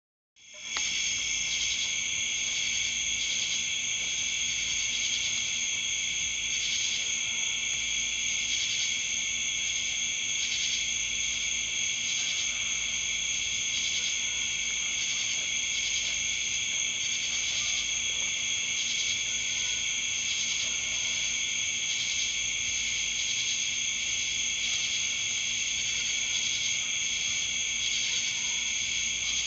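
Crickets chirping in a steady, high-pitched chorus with a fine, even pulsing.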